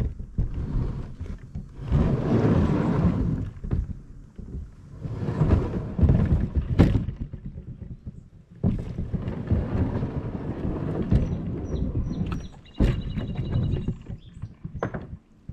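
A Tamarack plastic fishing kayak being unloaded and handled, with scattered thuds and knocks from the hull. Gusty wind rumbles on the microphone throughout.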